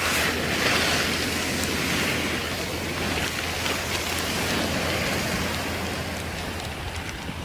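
Steady hiss of rain falling, with scattered drops ticking, easing slightly toward the end.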